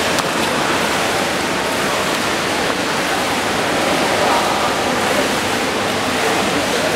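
Steady rushing water noise of players swimming and splashing in a pool during a water polo game.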